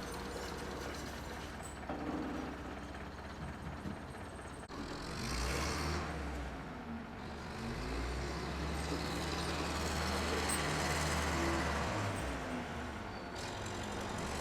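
Diesel tractor engine running steadily, its revs rising and falling several times.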